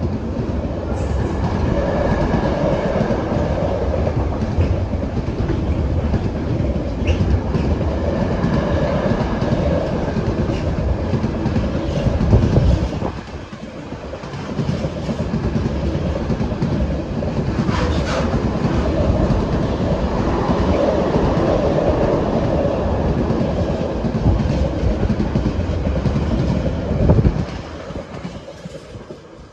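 Intermodal container wagons of a freight train rolling past, a loud steady rumble of wheels on the rails. It dips briefly about halfway through, then dies away quickly near the end as the last wagon clears.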